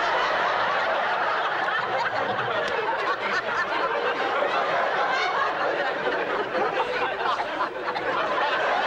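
Sitcom studio audience laughing: one long, sustained laugh from many people.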